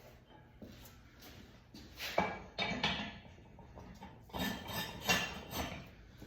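Metal targets and stand parts clanking and clinking together as the targets are set in place on a metal target stand: a few sharp ringing knocks about two to three seconds in, then another run of them from about four and a half seconds on.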